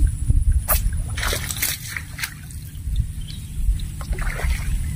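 Several short splashes and sloshes of shallow floodwater, over a steady low rumble.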